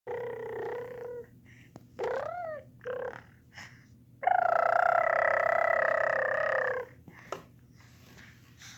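A baby buzzing his lips in pitched 'motor boat' raspberries, like a trumpeter's lip buzz: four buzzes, the second sliding up and back down in pitch, the last the loudest and longest at about two and a half seconds.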